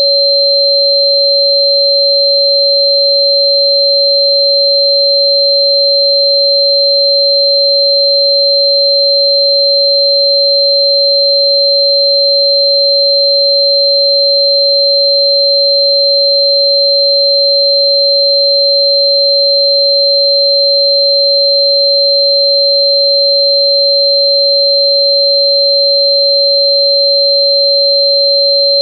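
Steady, unchanging pure sine tones: a loud tone near 559 Hz, the frequency given for Chuan Bei Mu (Sichuan fritillary bulb), together with a second, high-pitched steady tone.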